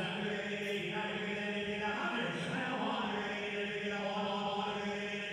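Auctioneer's rapid, unbroken bid-calling chant, calling for the next bid as the price climbs.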